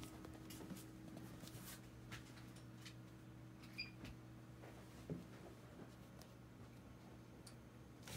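Near silence: quiet room tone with a faint steady hum and a few soft, scattered taps and clicks.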